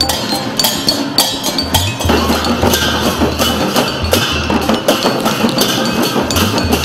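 Newar dhimay drums beaten with sticks and large brass cymbals clashing in a steady processional rhythm; the playing grows denser about two seconds in.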